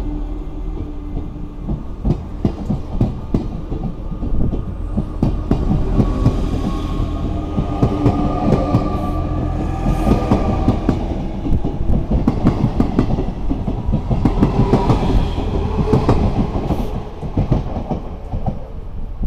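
Z5600 and Z20900 double-deck Transilien electric multiple units pulling out and passing close by, the wheels clacking on the rails in a rapid irregular series over steady tones. The sound eases slightly near the end as the train draws away.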